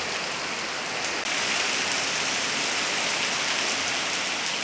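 Heavy rain pouring down in a steady hiss, growing a little louder about a second in.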